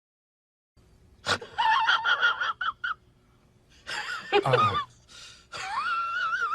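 High-pitched, voice-like squealing cries: several short ones, then a long cry with a wavering pitch near the end.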